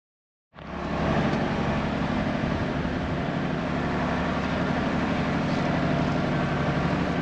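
Diesel engine of a 1983 Unimog U1700L ex-army truck running steadily under load as the truck creeps over bare rock, heard from inside the cab. It starts suddenly about half a second in, with a low steady drone.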